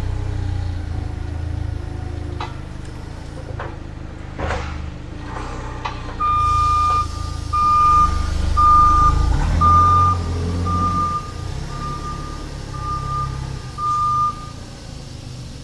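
Toyota forklift working, its engine running low and steady with a few clunks as it takes a coil off a flatbed trailer. About six seconds in, its reversing alarm starts: about nine steady, single-pitch beeps, roughly one a second, that stop near the end as the forklift moves off.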